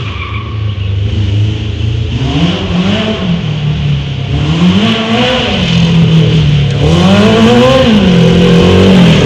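Kawasaki KZ1000 air-cooled inline-four motorcycle engine in a racing lawn mower, revving up and down over and over as the mower is driven hard. It grows louder over the last few seconds as the mower comes closer.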